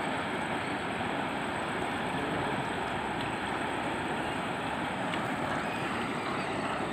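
Steady rushing noise of wind and shallow river water, with no distinct splashes.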